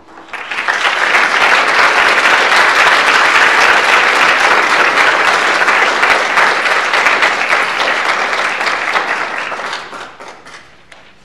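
Audience applauding: the clapping swells up within the first second, holds steady, then dies away about ten seconds in, leaving a few last scattered claps.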